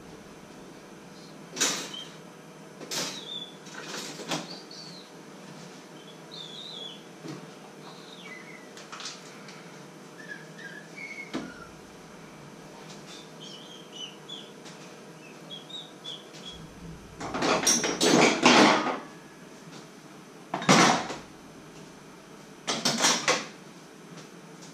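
Kitchen handling sounds at a counter: a few sharp knocks and clatters early on, faint short high chirps in between, and three louder bursts of clattering and rummaging in the second half.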